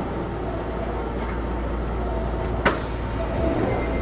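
Osaka Metro 66 series train running at reduced speed, heard from inside the car: a steady rumble of running noise with faint tones over it, and one sharp click about two and a half seconds in.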